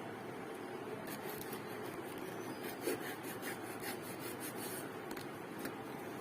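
Packaging being handled and opened: short scratchy rubbing and scraping strokes, with one light knock about three seconds in, over a steady background hiss.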